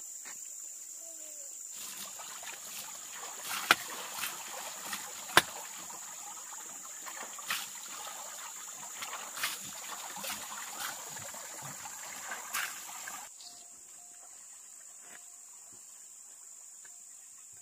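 Water splashing and trickling with a few sharp knocks, over a steady high-pitched insect drone. The splashing stops abruptly about thirteen seconds in, leaving the insects.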